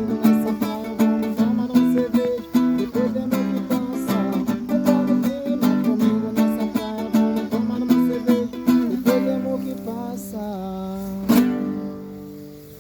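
Music played on a strummed acoustic string instrument such as a ukulele or guitar, in a steady strumming rhythm. It ends on a single last strum about 11 seconds in that rings out and fades.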